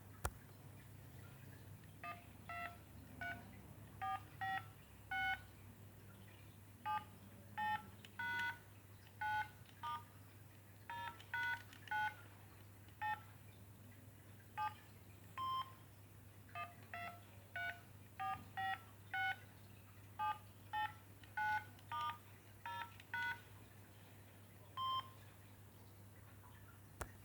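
Samsung SGH-B100 mobile phone's keypad tones: about thirty short beeps of two notes at once, their pitch changing from key to key, pressed at an irregular pace, starting about two seconds in and stopping a couple of seconds before the end.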